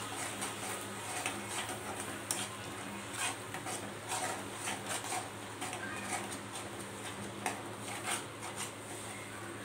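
Metal slotted spatula scraping and tapping against a steel kadhai as a thick onion-tomato paste is stirred and fried. Irregular scrapes and clicks come over a faint steady hiss.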